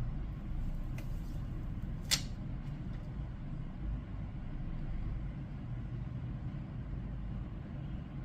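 Steady low background rumble, like traffic noise, with one sharp click about two seconds in and a fainter tick a second earlier.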